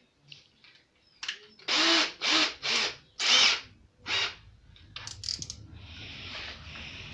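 Cordless drill run in about five short, loud bursts of the trigger, then a quieter, steadier whirring hiss near the end.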